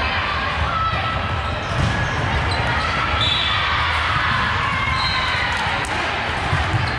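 Indoor court game sounds: sneakers squeaking on the gym floor and a ball bouncing, with players' voices in the echoing hall.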